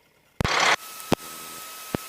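Electrical static on the cockpit headset audio feed: a sudden burst of noise about half a second in, then a steady hiss with a thin high whine, broken by two sharp clicks.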